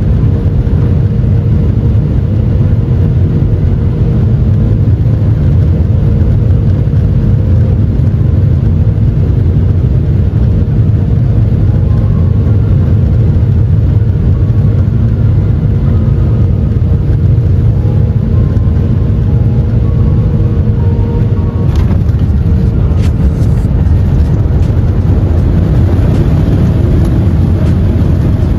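Jet airliner cabin noise on final approach and landing: a loud, steady rumble of the engines and airflow with a held engine tone. About three-quarters of the way through the tone drops out and a few knocks sound as the plane touches down, followed by a rising rush of noise as it slows on the runway.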